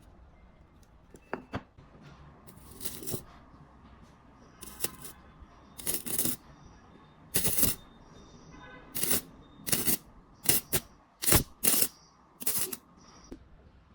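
About a dozen short, sharp crackling bursts, coming faster in the second half: the homemade battery welder's wire lead striking and sparking against metal.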